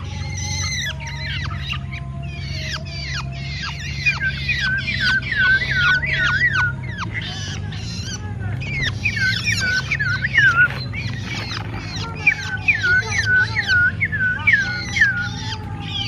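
Tame songbirds being hand-fed crickets, calling over and over: short calls that slide down in pitch, two or three a second, in runs of a few seconds. A steady low hum runs underneath.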